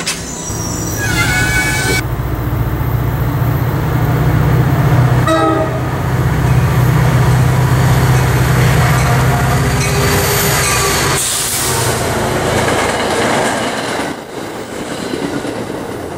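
Diesel-electric commuter locomotive running with a steady low engine drone as a train moves through the station, with a brief high squeal about a second in. The drone drops away about eleven seconds in, leaving a thinner rushing noise.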